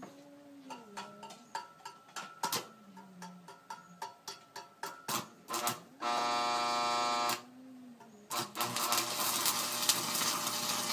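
Stick-welding electrode tapped against a steel plate to strike an arc: scattered clicks and short sputters, and a loud steady buzz lasting about a second around the middle. From about eight seconds in the arc catches and crackles steadily.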